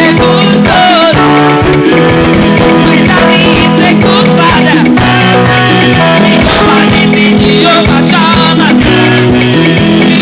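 Loud, continuous song: a singing voice over guitar and bass.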